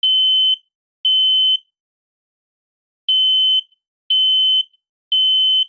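Smoke alarm sounding its high-pitched beep in the three-beep temporal pattern: the last two beeps of one group, a pause of about a second and a half, then three more half-second beeps. This is the alarm signal that means get out of the house right away.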